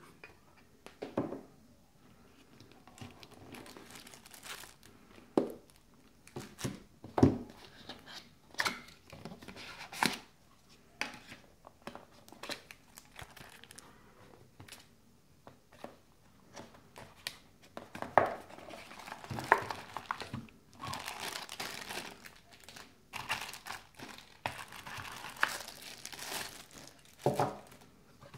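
Plastic bags crinkling and a cardboard phone box being handled while accessories are unpacked, with irregular sharp taps as the box parts and bagged items are set down on a table.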